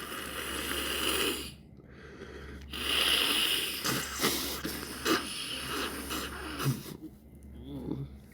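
Wet, gurgly sniffling through a runny, congested nose: two long drawn-in sniffs, the second with several wet crackles.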